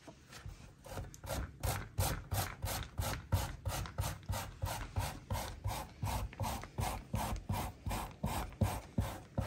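Raw potato being grated by hand on the coarse side of a grater: a steady run of rasping strokes, about four a second.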